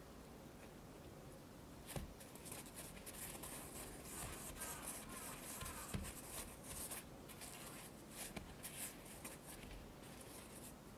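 Granulated sugar scraping and rustling as a filled doughnut is rolled around by hand in a glass bowl of it, starting about two seconds in, with a couple of soft knocks against the bowl.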